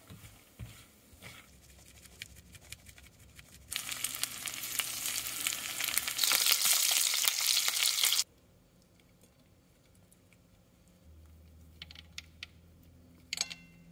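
Pieces of mahi mahi frying in oil in a pan, giving a loud steady sizzle for about four seconds in the middle that cuts off suddenly. Before it comes a quieter sizzle of pine nuts toasting in butter, with a spatula scraping the pan. Near the end there are a few light clicks of a spoon against a plate.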